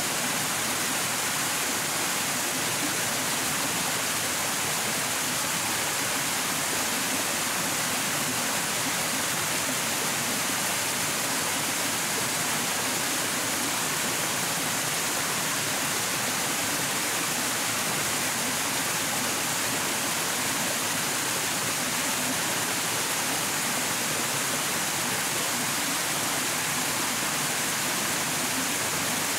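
Steady, unbroken rush of flowing water, like a stream or small waterfall, with no distinct events.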